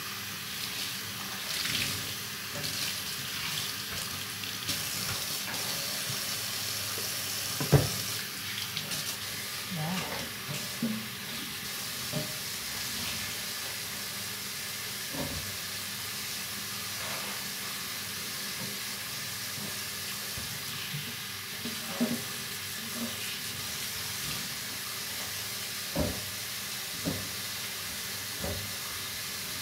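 Kitchen tap running steadily into a stainless-steel sink while a cloth is rinsed and squeezed under the stream. A few sharp knocks sound on the metal basin, the loudest about eight seconds in.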